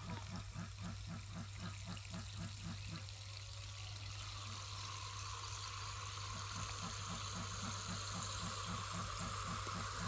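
Water running steadily, as from a tap, growing a little stronger about four seconds in, over a steady low hum and a rapid even pulsing of about five beats a second.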